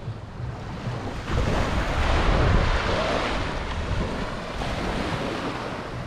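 Small waves washing up on a sandy beach, with wind buffeting the microphone. The wash swells about a second in and eases off again.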